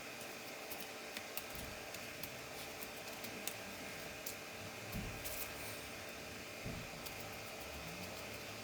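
Scattered light clicks and taps of small laptop parts and tools being handled, with a few soft low knocks, over a steady background hiss.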